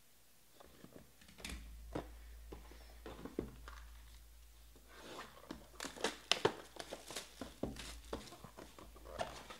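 Plastic shrink-wrap being torn off a sealed trading-card box and crinkled in the hands: irregular crackling and rustling with small clicks, busier in the second half.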